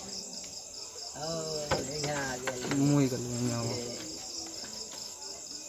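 Crickets chirping steadily in a high, evenly pulsing trill. People's voices talk in the background from about a second in until about four seconds in.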